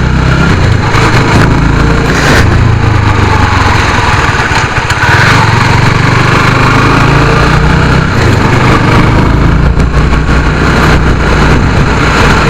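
Honda CB150's single-cylinder four-stroke motorcycle engine running steadily.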